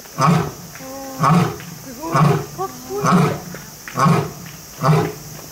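Male lion roaring in its run of grunts: a regular series of loud, deep grunts a little under a second apart, six in all.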